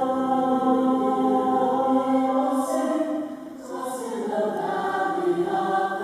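Musical theatre singers performing live on stage. The voices hold one long note, then move into a new sung phrase about halfway through.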